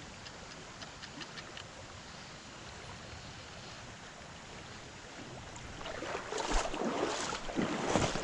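Shallow stream water running over a riffle as a steady rush; about six seconds in, louder, irregular splashing and sloshing starts close by.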